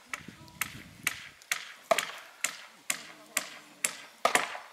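Hand-tool blows striking wood in a steady rhythm, about two a second, each one sharp with a brief ring, as the fence is being built.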